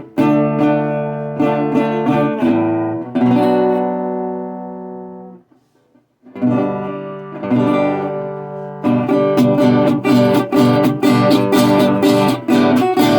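Resonator guitar played with a pick: picked notes and chords. About three seconds in, one chord is left to ring and die away. There is a short break just before six seconds, then the picking comes back and grows denser from about nine seconds. The tone sounds shaky, which the player blames on the camera's microphone not coping with the resonator's chorus.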